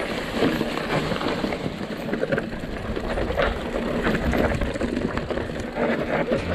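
Mountain bike rattling down a rocky, leaf-covered trail: a dense, continuous clatter of many small knocks from tyres on stones and the bike's frame and parts being shaken, over a low rumble.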